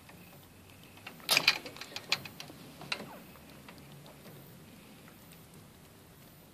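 Rabbit drinking from the metal drinking tube of a hanging water bottle: a quick run of clicks and rattles as its tongue works the tube's ball valve. The loudest clicks come about a second in, with a few more over the next two seconds.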